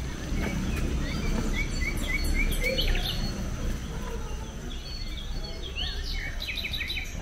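Forest birds calling: a quick run of about six short, evenly spaced chirps, then more scattered higher chirps near the end. Underneath are a steady high thin whine and a low outdoor rumble.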